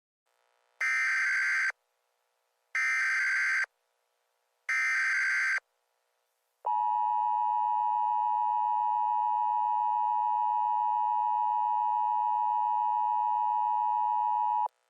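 Emergency Alert System tones: three short bursts of the SAME digital header, each a buzzy data screech of about a second, then the steady two-tone EAS attention signal held for about eight seconds before cutting off.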